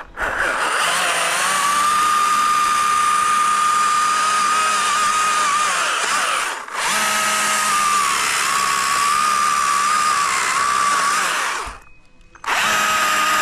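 Chainsaw running at high revs in long runs. It eases off briefly about halfway through and drops away for under a second near the end before revving up again.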